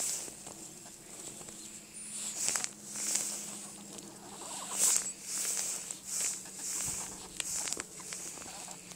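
Footsteps crunching through snow, a string of short crisp crunches at an uneven walking pace.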